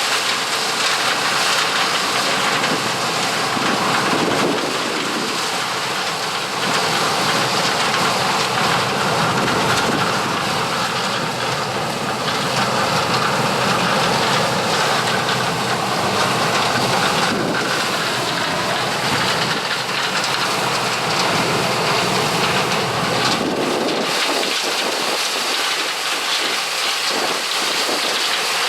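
1983 Gleaner L3 combine harvesting corn: its turbocharged Allis-Chalmers 670T six-cylinder diesel and threshing machinery run as a steady, loud, even noise with no distinct rhythm.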